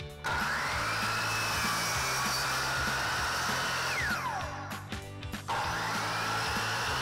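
Electric miter saw crosscutting plywood: the motor runs up to a steady whine, winds down with a falling pitch about four seconds in, then starts again about a second and a half later for the next cut.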